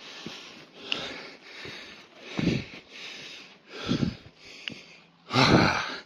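A person breathing hard close to the microphone: deep, noisy breaths in and out about every second and a half, the loudest near the end. Out of breath from hiking.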